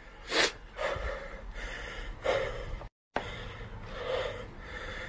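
A man breathing hard and fast close to the microphone: a sharp gasp about half a second in, then quick noisy breaths at roughly two a second. The sound drops out completely for a split second near the middle.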